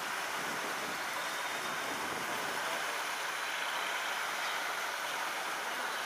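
Steady, even rushing of wind, with no distinct calls or knocks.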